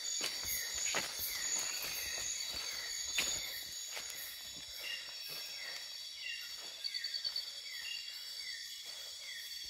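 Night-time rainforest insect chorus: a steady high buzz, with short falling chirps repeating about twice a second and a brief rapid pulsed trill about seven seconds in. A few sharp snaps of footsteps on the leaf-littered trail in the first three seconds.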